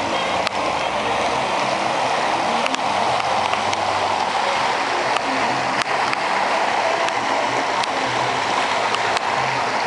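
Fountain water splashing steadily into its basin, with a few light clicks over it.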